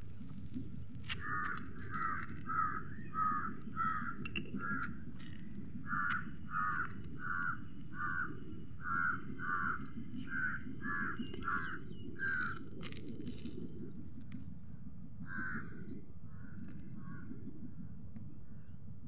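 A crow cawing over and over, about two caws a second, then breaking off with one or two more caws later, over a steady low rumble.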